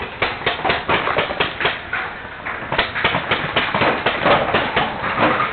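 Paintball markers firing in rapid, uneven strings of sharp pops, several shots a second throughout.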